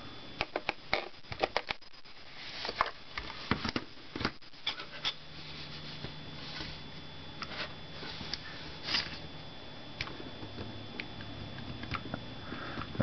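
Clicks and knocks of hard plastic being handled: a Disney Sleepy Sounds bedside light closed up over freshly fitted batteries, turned upright and pressed on the table, with most of the sharp clicks in the first few seconds. The toy's own voice does not play in try-me mode, a sign that its speaker has come loose.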